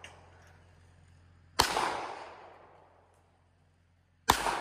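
Two handgun shots about two and a half seconds apart, each a sharp crack followed by a long echo that fades away.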